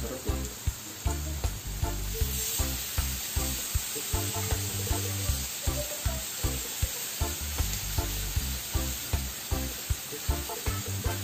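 Strips of pork belly sizzling on an electric grill plate, a steady frying hiss. Background music with a steady beat plays over it.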